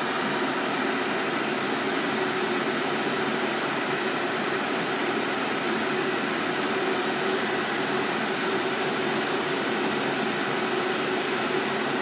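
Steady rushing hiss of a large stainless-steel pot of wort coming to the boil on a gas hob while it is stirred; the wort is foaming with hot break at the start of the boil.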